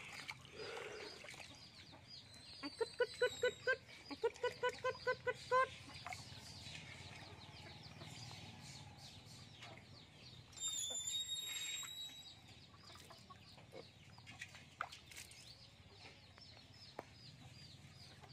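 A hen clucking: two quick runs of about ten short clucks a few seconds in, with a brief high chirp near the middle.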